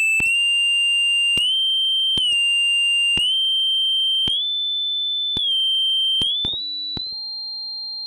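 A sine-wave tone driven through a digital distortion plugin, stepping to a new pitch about once a second with a click at each key change and mostly rising. Each note carries extra out-of-tune ringing tones, well below and above the main pitch: aliasing, the distortion's harmonics folded back into the audible range, which gives a fax-machine-like sound.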